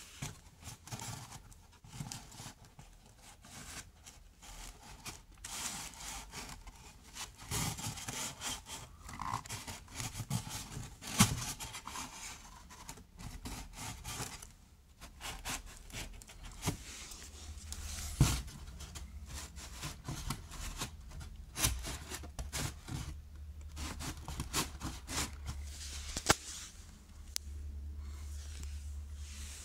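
Irregular rubbing, scraping and clicking handling sounds, with a couple of sharper knocks; a low steady hum comes in about halfway through and grows stronger near the end.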